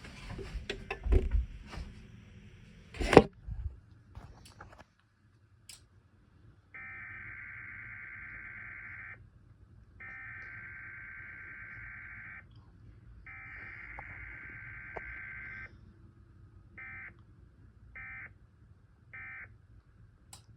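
NOAA Weather Radio SAME data tones for a required weekly test, heard through a radio receiver. Three long warbling data bursts about a second apart form the alert header, then three short bursts form the end-of-message code. It opens with crackling and one sharp pop about three seconds in.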